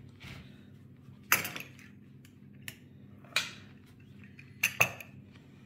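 A utensil clinking against a plate: a handful of sharp clinks about a second apart, two in quick succession near the end.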